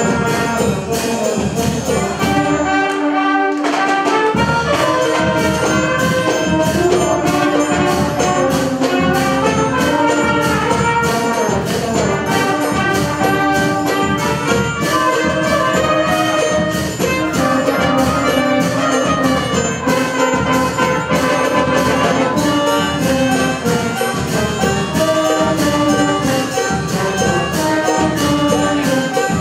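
A small live band playing a tune on melodicas, tuba, trumpets and baritone horns, with drums keeping an even beat of about two strokes a second. The low notes drop out briefly about three seconds in, then the full band carries on.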